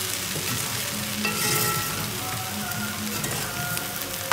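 Rice and beans frying with spices in a pot, with a steady sizzle.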